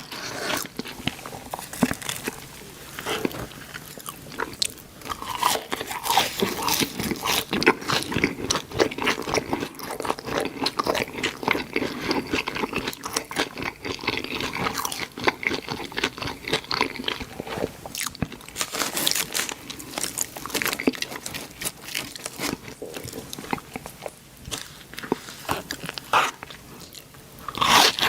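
A person eating close to the microphone: a continuous run of crisp bites and crunching chews of fast food.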